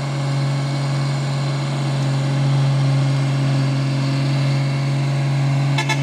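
Heavy truck's diesel engine running hard at low speed, working up a steep climb; a steady, even drone, with a couple of short clicks near the end.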